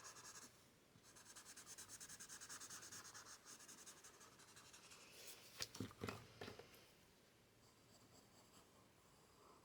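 Faint rubbing of a blending tool on paper as graphite shading is blended in quick small circles, a fast even swishing. A few light knocks come just past the middle, and the rubbing then goes on more faintly.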